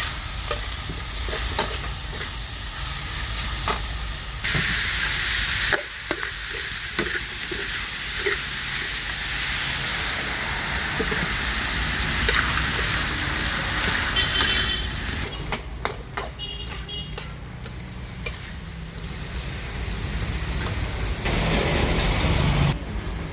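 Chicken frying in hot oil, a steady sizzle with frequent clicks and scrapes of a utensil.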